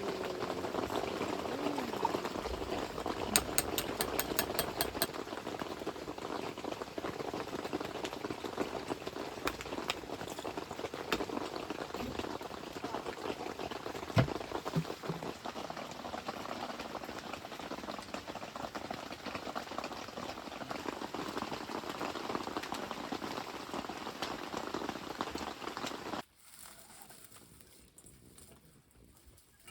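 Pot of mushrooms and meat boiling at a steady bubble, with a quick run of even ticks about three seconds in. The bubbling cuts off abruptly near the end, leaving a much quieter background.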